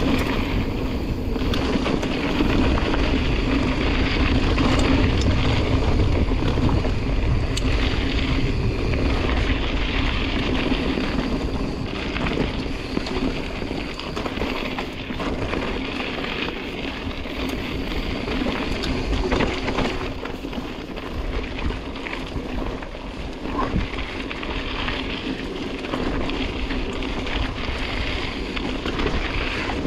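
Wind rushing over the microphone of a mountain bike ride, with a few sharp knocks and rattles from the bike over the rough trail.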